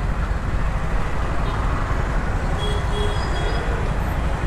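Motorcycle riding through city traffic, heard from the rider's seat as a steady, dense low rumble of engine, road and wind on the microphone. Brief faint high tones come a little past halfway.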